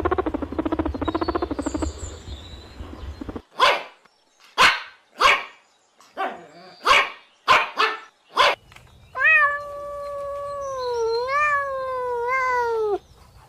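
A run of animal sounds: a rough, rapidly pulsing growl-like sound, then about eight short sharp barks, then one long wavering cry that slides down in pitch at the end.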